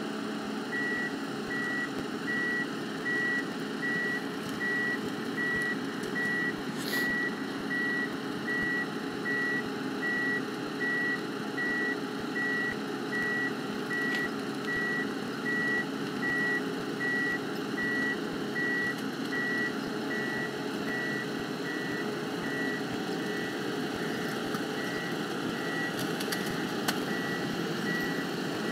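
Ponsse Elephant King forwarder's diesel engine running as the machine moves, with its reversing alarm giving a steady high single-tone beep about three times every two seconds.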